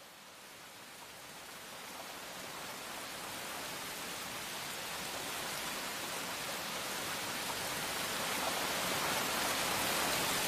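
Steady rushing hiss like heavy rain, fading in and growing louder throughout.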